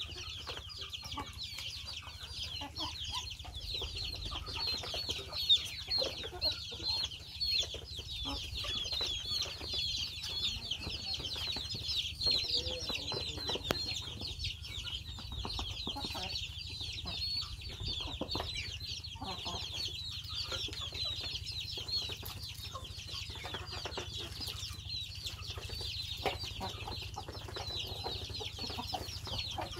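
A crowd of young poultry, Muscovy ducklings and chicks, peeping constantly while they feed, many short high falling peeps overlapping into one continuous chorus.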